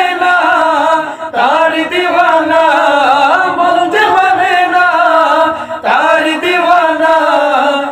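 A group of men sing an unaccompanied nasheed in chorus, in long held, ornamented notes. Three phrases each open with an upward slide.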